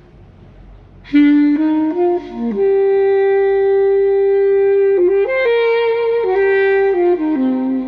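Music: a solo melody line. After a quiet first second it steps through several notes, holds one long note for about two seconds, then moves through a few more.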